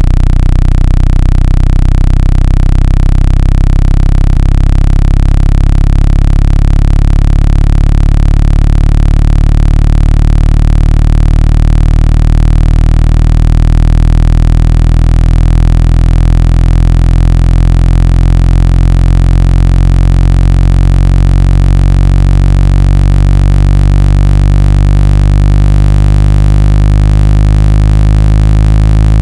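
Loud electronically generated low bass tone for shaking water and dust out of a phone or speaker grill: several steady low pitches sounding at once, holding without a break.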